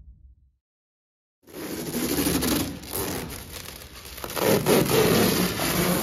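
Protective plastic film being peeled and torn off a race car's new body panels, crinkling and crackling in uneven bursts. It starts about a second and a half in and is loudest near the end.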